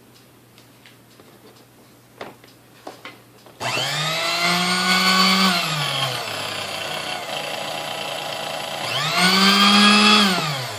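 Sunbeam Mixmaster Model 12 stand mixer motor switched on after a few light clicks, spinning up to a high whine, dropping to a lower speed for a few seconds, then rising again before falling away near the end. It runs smoothly, the armature's front thrust spring and pin now in place: "way better".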